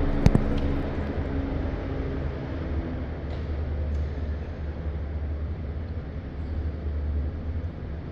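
Steady low rumble with a hiss above it, the background noise of an indoor swimming pool hall, with one sharp click about a quarter second in.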